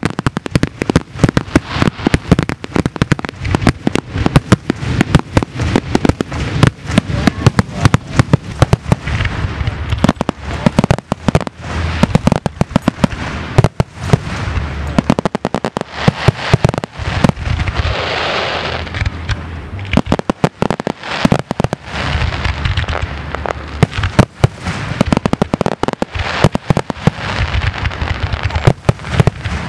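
Aerial firework shells bursting in rapid succession, a dense, continuous run of bangs and crackles. About eighteen seconds in, a stretch of hissing crackle stands out.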